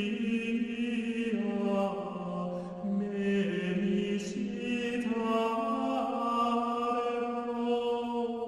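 Background music of slow vocal chant: long held notes that step to new pitches every second or two.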